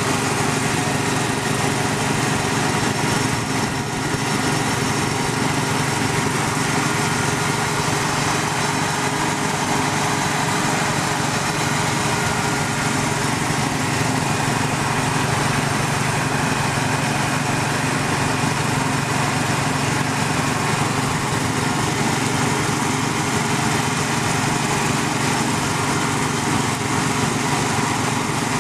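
Tractor engine running steadily, powering a 3-point-hitch hydraulic well-drilling rig.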